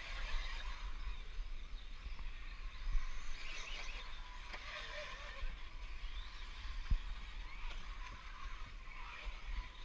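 Electric 1/10-scale 4WD RC buggies racing on a dirt track, their motors whining with pitch that rises and falls with throttle, over a low rumble. A single sharp knock about seven seconds in.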